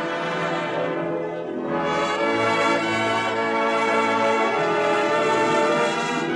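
Orchestral music led by brass, playing held chords that change every second or two.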